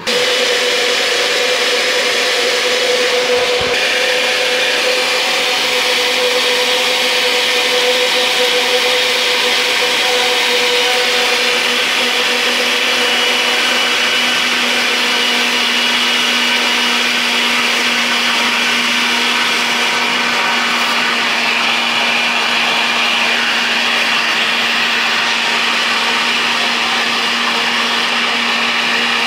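Countertop glass-jar blender switched on and running steadily, puréeing lulo fruit into a smooth green mixture.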